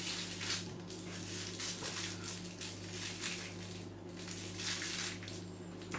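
Plastic piping bag full of whipped cream crinkling and rustling as it is twisted and squeezed by hand, in a string of short crinkles. A steady low hum runs underneath.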